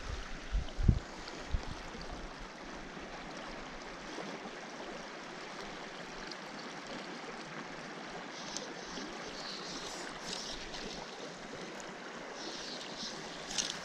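Fast-running mountain trout stream: a steady, even rush of water.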